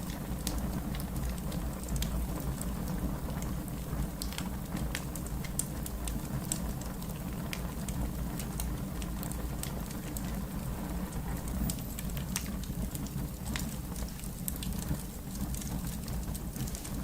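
Fire crackling: irregular sharp pops and snaps over a steady low rumble of burning.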